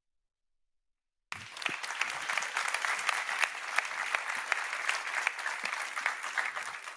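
Audience applauding, a dense patter of many hands clapping that cuts in suddenly about a second in after a moment of silence.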